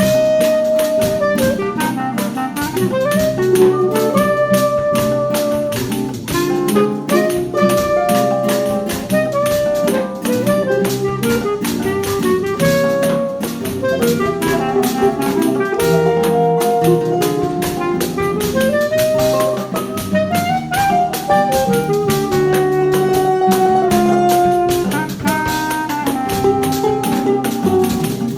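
Choro ensemble playing: a clarinet carries a held, sliding melody over a busy pandeiro and drum-kit rhythm, tuba bass, and strummed and plucked guitars and mandolin.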